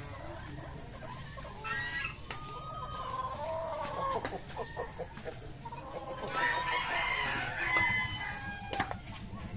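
Brahma chickens clucking, with a rooster crowing once, a call lasting nearly two seconds starting about six seconds in.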